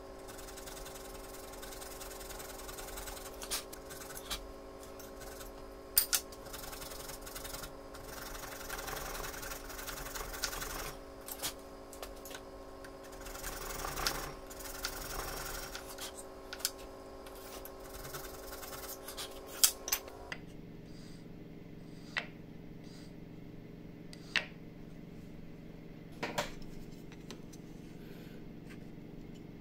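A thin-bladed handsaw cutting wood in short, irregular strokes inside the throat of a wooden hand plane, with scattered sharp clicks. About two-thirds of the way through it gives way to a chisel paring wood, with a few isolated clicks.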